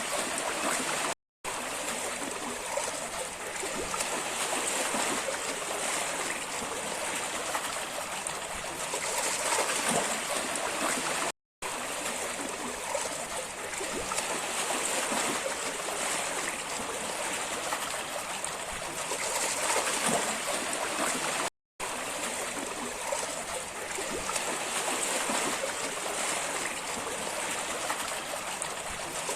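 Steady sound of running, trickling water, like a stream, broken by three brief silent gaps about ten seconds apart.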